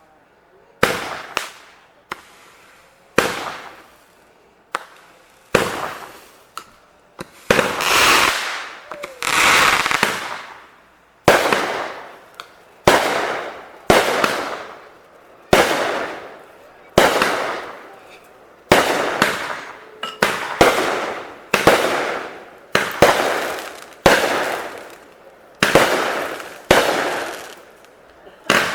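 Fireworks going off in quick succession, about one sharp bang a second. Each bang is followed by a fading rumble and crackle, and near the middle comes a longer stretch of dense crackling.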